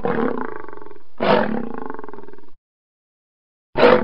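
Male lion roaring in short separate calls: one running on into the start, a second about a second in that lasts just over a second, and a third beginning near the end. Each opens with a loud burst and settles into a steady growl before cutting off.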